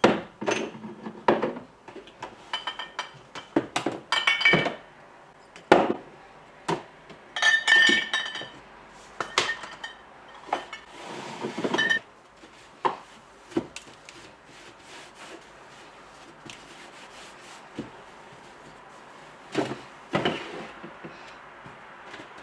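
Glass bottles and jars being picked up and set down on a kitchen cupboard shelf: an irregular run of knocks and clinks, some with a short glassy ring. The handling goes quieter for a few seconds past the middle, then a few more knocks follow near the end.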